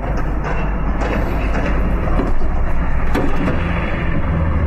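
Steady low vehicle engine rumble, with a short click about three seconds in.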